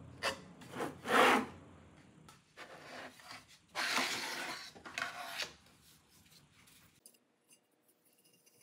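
A metal square with a digital angle gauge being slid over and lifted off a wooden crosscut jig: several short scraping rubs, the loudest about a second in and another cluster around four seconds in.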